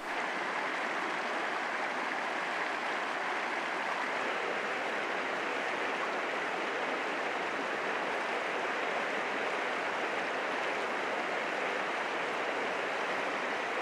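Shallow mountain creek running over rocks: a steady rush of water.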